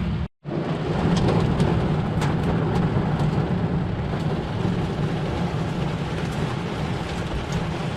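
Heavy storm rain pelting a vehicle's roof and windshield, heard from inside the cab as a dense patter over a steady low rumble. The sound drops out for a moment just after the start.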